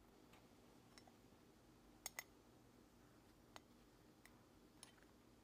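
Near silence broken by faint, sparse clicks of a screwdriver and small metal parts on a Mercury 9.9 outboard carburetor as it is being opened up: a quick double click about two seconds in, and single clicks here and there.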